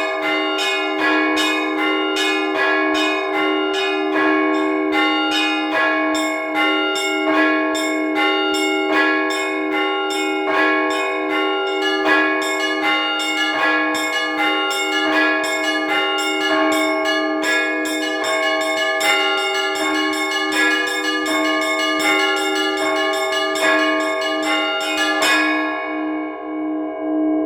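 Russian Orthodox church bells rung as a trezvon: small and medium bells struck in a quick, dense pattern over the steady low tone of a larger bell. About 25 seconds in the strikes stop and the bells ring out and fade, the end of one round of the trezvon, while the big bell's low hum carries on.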